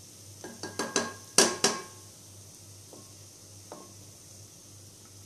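A wooden spatula knocking and scraping against a plate as spice powders are pushed off it into a pot: a quick cluster of sharp clicks in the first two seconds, then two fainter taps.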